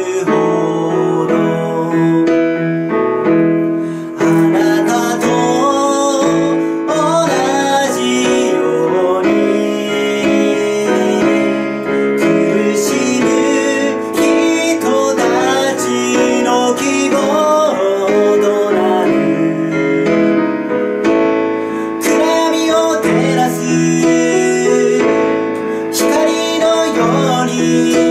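A man singing a song in Japanese to piano accompaniment.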